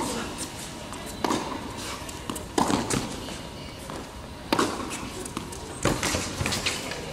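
Tennis ball struck by racquets and bouncing on an indoor hard court during a rally: sharp pops about every second or so, each echoing briefly in the hall.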